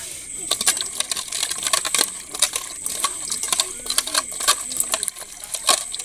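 Small cleaned fish being scrubbed by hand with salt in a stainless steel bowl: irregular sharp clicks and clinks of fish and fingers against the metal, several a second, to strip the slime off the fish. A steady high thin whine runs underneath.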